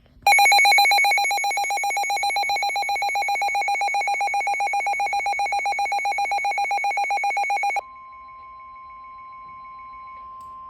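A loud, rapidly warbling alert tone, trilling like a fast bell, for about seven and a half seconds. It switches abruptly to a single steady high tone that is much quieter and slowly grows louder: the NOAA Weather Radio 1050 Hz warning alarm tone that precedes a broadcast warning.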